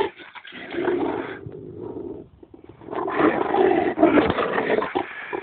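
Large bullmastiff–Great Dane cross growling deeply in two long growls, with a short break a little over two seconds in.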